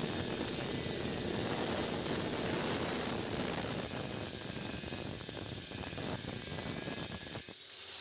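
Handheld angle grinder cutting through a damaged steel bolt on a washing machine's gearbox flange: a steady, high-pitched grinding whine that stops abruptly near the end.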